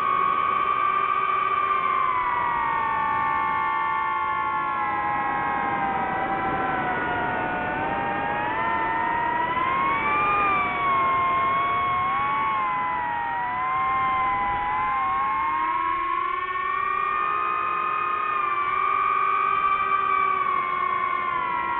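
DJI FPV quadcopter's motors and propellers whining as heard from on board, several close tones gliding up and down in pitch as the throttle changes.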